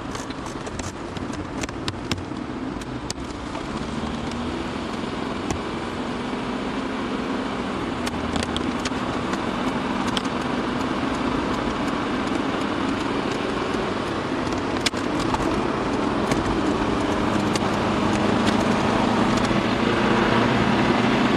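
Car engine and tyre noise heard from inside the cabin, getting steadily louder as the car picks up speed, with a few light clicks and rattles.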